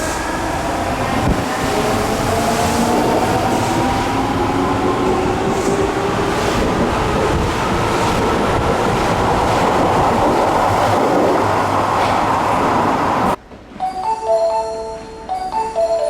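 Osaka Metro 30000A series subway train pulling out, its motor whine rising steadily in pitch over running and wheel noise as it accelerates. About 13 seconds in, this cuts abruptly to a station chime melody.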